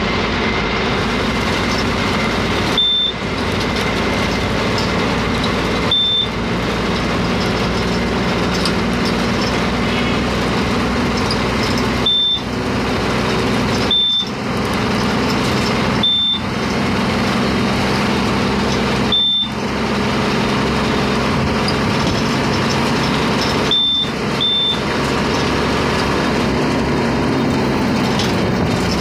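Steady engine and road noise heard from inside a vehicle driving through traffic. A short, high electronic beep sounds eight times at uneven intervals.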